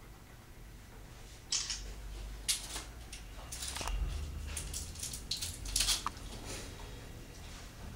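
Scattered close rustling, scuffing and clicking noises from movement and handling right by the microphone. They come as a handful of short bursts from about a second and a half in, thickest around five to six seconds, over a low rumble.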